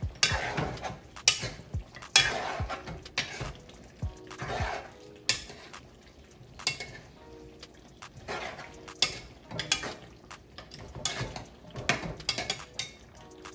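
Metal tongs and a metal spoon clinking, knocking and scraping against a pot as pieces of fried chicken are dropped into thick sauce and stirred in. The knocks come irregularly, with short scrapes between them.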